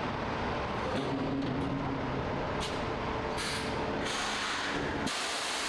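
Semi-truck diesel engine running as the tractor-trailer with a shipping container manoeuvres, with several short hisses from its air brakes in the second half and a longer hiss near the end.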